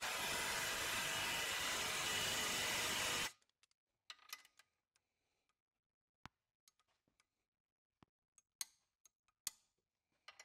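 Cordless impact tool running for about three seconds, driving a rivet-nut setting tool to draw a rivet nut into the car's subframe, then stopping abruptly. After it come a few scattered light clicks and taps of hand tools.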